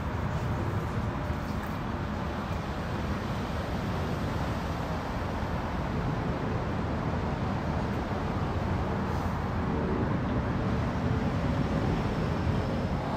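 Steady low rumble of boat engines running at a ramp, with a faint engine hum coming through in the middle seconds.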